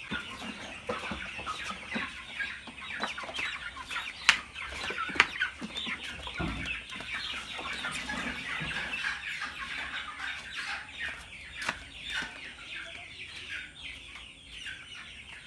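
A flock of chickens clucking and calling continuously while being handled, with two sharp knocks about four and five seconds in.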